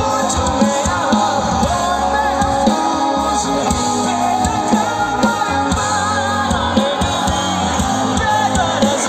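Hindi rock band playing live with a sung vocal, bass and a steady drum beat, loud and heard from within the audience.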